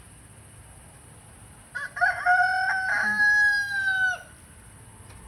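Rooster crowing once: a single drawn-out crow starting a little under two seconds in, held for about two and a half seconds and dropping in pitch as it ends.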